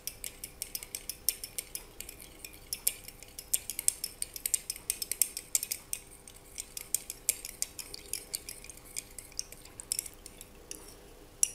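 A metal spoon stirring salt into a small glass of water, clinking quickly and unevenly against the glass, with a short lull about halfway through.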